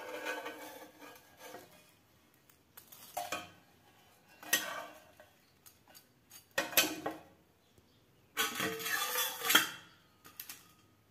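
Spatula scraping and knocking against the dosa pan and a steel plate as a folded plain dosa is lifted off and plated, in several short clattering bursts. The longest and loudest, with some metallic ringing, comes about eight and a half seconds in.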